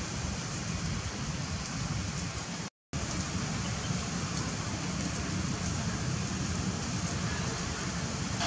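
Steady outdoor background noise, a constant low rumble and hiss with no distinct events, cutting out to silence for a moment about three seconds in.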